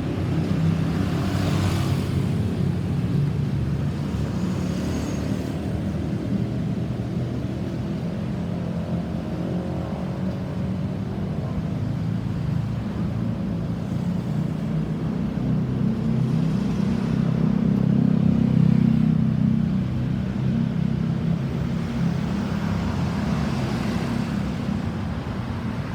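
Road traffic: motor vehicle engines running and passing by, with no siren. One vehicle goes by louder about two-thirds of the way through.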